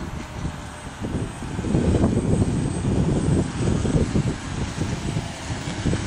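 Radio-controlled model airplane's motor running as it comes in to land, with gusts of wind buffeting the microphone.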